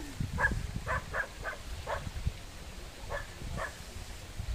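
A dog barking in short, sharp barks, about seven in all: five in quick succession, then a pause and two more. A steady low rumble of water and handling runs underneath.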